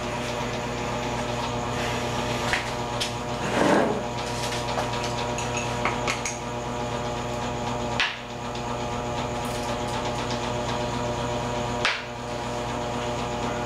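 Steady mechanical motor hum with a few light knocks and clicks over it, and a short scraping rustle about four seconds in.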